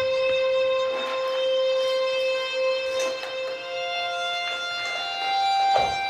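Slow music of long held notes, likely a violin, with the pitch stepping up a few times after a note held about three seconds, and a few faint knocks underneath.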